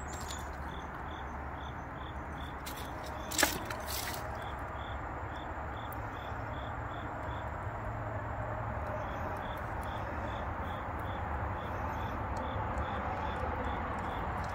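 A cricket chirping steadily, about three short high chirps a second, over a constant low background rumble. A single sharp click about three seconds in is the loudest sound.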